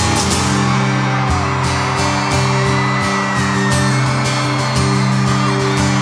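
Live music in a stadium: a guitar strumming over steady held chords in a gap between sung lines, with scattered whoops from the crowd.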